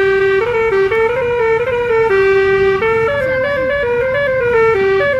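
Basuri telolet bus horn playing a continuous melody of steady pitched notes, some short and some held, stepping up and down like a tune.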